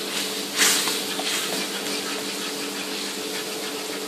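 Manchurian gravy sizzling and bubbling in a hot wok as cornflour slurry is stirred in, with a louder surge of sizzling about half a second in. A steady low hum runs underneath.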